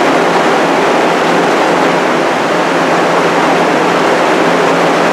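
Restored Jenny exhaust fan running: a steady rush of air from the spinning blade over a low, even motor hum, running smoothly without vibration.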